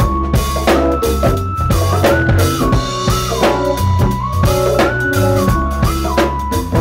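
Live soul band playing an instrumental groove: drum kit with kick, snare and rimshots over a strong bass line, and a sustained melody line that moves up and down in steps.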